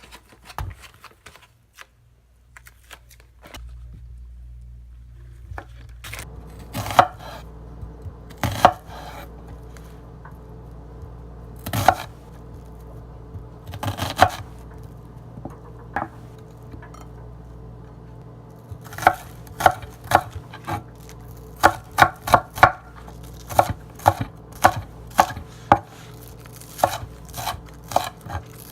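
Kitchen knife chopping on a cutting board: scattered single strokes at first, then a steadier run of chops, a little under two a second, in the second half, over a steady low hum.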